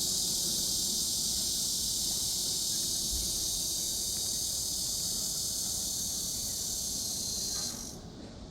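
Steady, high-pitched chorus of insects, dense and unbroken, that cuts off suddenly near the end, leaving a faint low rumble.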